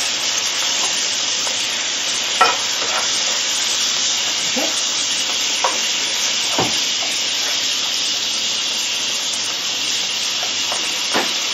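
Lobster tail, beef and onion sizzling in an oiled non-stick frying pan: a steady frying hiss, with a slotted spatula scraping and tapping against the pan a few times, most sharply about two and a half seconds in.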